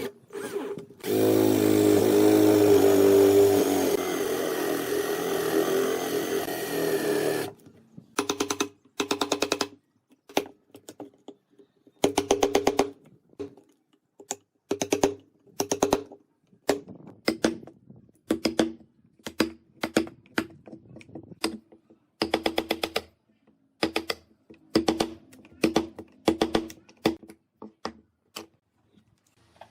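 Power tool motor running for about six seconds, then started and stopped in many short bursts, about one every second.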